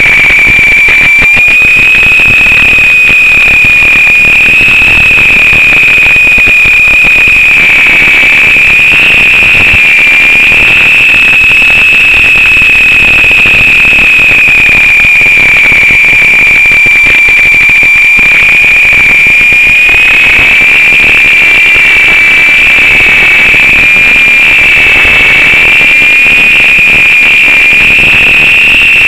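Loud, steady high-pitched howl that wavers slightly in pitch over a constant hiss, picked up by the onboard microphone of a Lama RC helicopter in flight and sent down its analog 5.8 GHz audio link; the uploader hears it as the wind howling.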